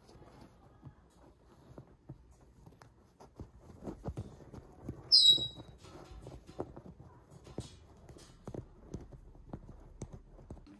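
A cockatoo gnawing a piece of wood with its beak, giving a run of irregular small clicks and cracks as it bites and splinters the wood. About five seconds in there is one brief, loud, high-pitched squeak.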